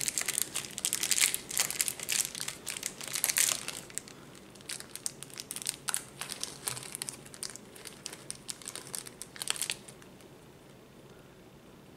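Small clear plastic parts bag holding metal pins crinkling as it is handled and opened, densest in the first four seconds, then lighter scattered crinkles and ticks that die away about two seconds before the end.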